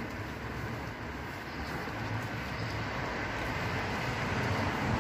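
Road traffic noise: a steady rumble of passing vehicles that grows louder toward the end as one comes nearer.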